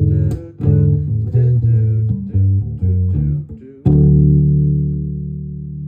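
Guitar music: a run of plucked notes, then a final chord about four seconds in that rings out and slowly fades.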